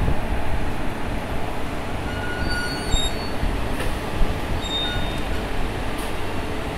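WAP-4 electric locomotive rolling slowly during shunting: a steady rumble, with a few short, high wheel squeals around the middle.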